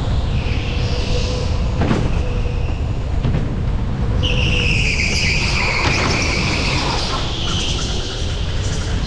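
Go-kart tyres squealing on a polished concrete indoor track over the kart's steady rumble and vibration, with the longest and loudest squeal in the middle.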